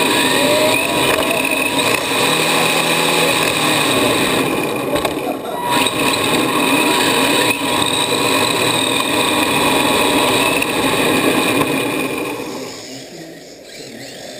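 Electric RC drift car's motor and drivetrain whining, with tyre noise as it slides around the track, heard from on board the car. The sound drops away about twelve and a half seconds in as the car slows to a stop.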